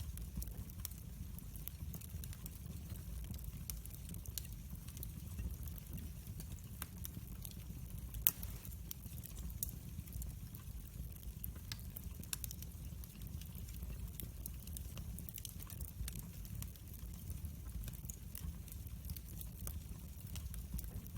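Wood fire burning in a fireplace: a low steady rumble of flame with irregular sharp crackles and pops, one louder pop about eight seconds in.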